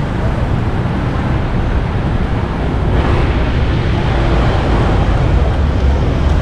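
Road traffic noise from passing vehicles, with wind rumbling on the microphone.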